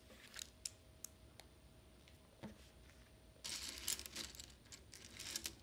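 Faint, scattered clicks of plastic LEGO bricks being handled and picked from a plastic basket, with a short burst of rustling and clicking about three and a half seconds in.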